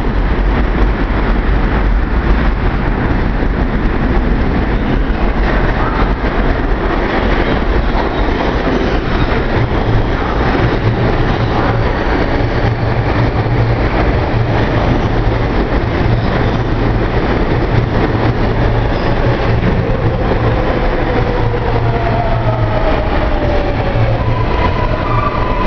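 R142A subway train pulling into the station and braking: a steady loud rumble of wheels on the rails, with the traction motors' whine falling in pitch over the last several seconds as the train slows.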